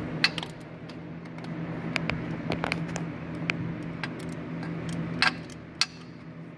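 Scattered sharp metallic clicks and clinks of a 13 mm wrench being fitted and worked on the nut of the starter's power-wire terminal. Underneath runs a steady low hum.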